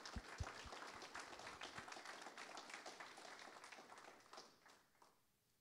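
Audience applauding: a dense patter of many hands clapping that fades out near the end. A few low thumps come in the first second.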